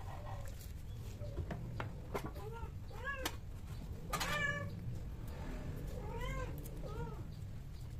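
Domestic cats mating: a cat gives several short yowling meows, each rising and falling in pitch, starting about two and a half seconds in. The loudest comes about four seconds in and the last near seven seconds.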